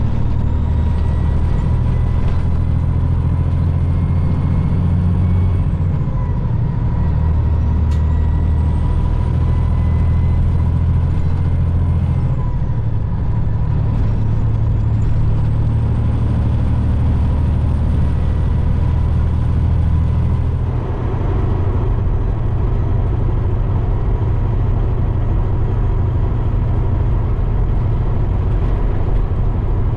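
Peterbilt semi truck cruising at highway speed: a steady low diesel engine and road drone, with a high whine that rises, holds for a few seconds and falls away three times. About two-thirds of the way through, the sound shifts to the inside of the cab, with more rumble and rattle in the mix.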